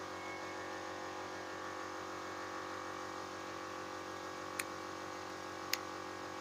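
Steady electrical hum of several constant tones, with two sharp clicks about a second apart in the second half.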